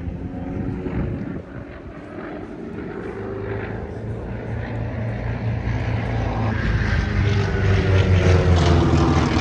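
Propeller aircraft's piston engine droning, growing steadily louder as it comes nearer.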